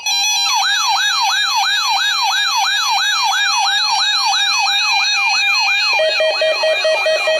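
Electronic siren sound effect in a fast yelp, each sweep rising and falling about three times a second over held synthesizer tones. About six seconds in, the sweeps fade and a lower steady tone comes in.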